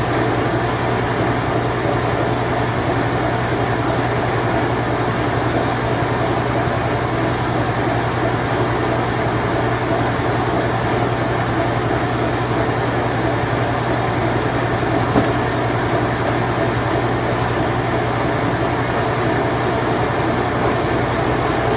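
Vintage Whirlpool Imperial Clean Touch top-load washing machine running its spin cycle: a steady whirring with an even low hum underneath.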